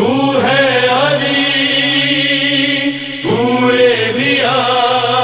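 Wordless vocal chant opening a manqabat: voices holding long, slowly changing notes, moving to a new note every second or two, with a short dip about three seconds in.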